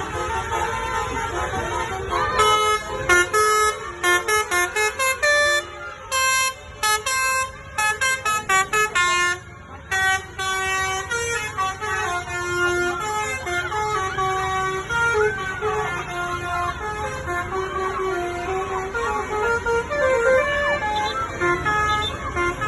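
Bus 'telolet' musical horn playing a tune: held chords at first, then a run of rapid short toots for several seconds, then longer changing notes.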